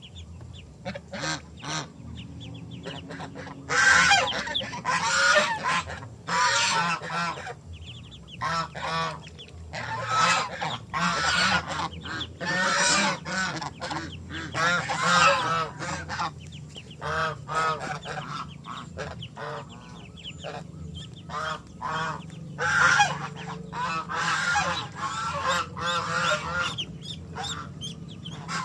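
Domestic geese honking in repeated bouts of rapid calls, loud stretches of several seconds broken by quieter gaps.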